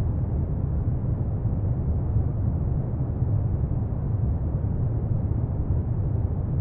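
Steady, deep rumbling noise of the brown-noise kind, even and unchanging, with no melody or plucked notes.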